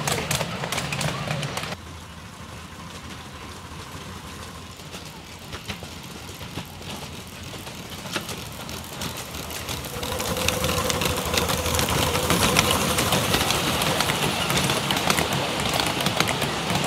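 Miniature-gauge steam train running along the track, its wheels clicking rapidly over the rails, with passengers' voices mixed in. The sound drops suddenly to a quieter stretch about two seconds in and grows louder again, with denser clicking, from about ten seconds in.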